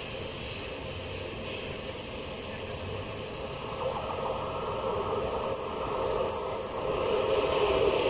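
Freight train hauled by a class 060-EA electric locomotive approaching along the track, its rolling rumble growing steadily louder from about four seconds in.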